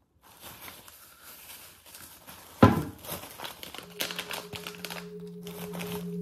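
Plastic bag and grocery packets crinkling and rustling as they are handled, with one sharp knock about two and a half seconds in. Soft music with held notes comes in about four seconds in and grows louder.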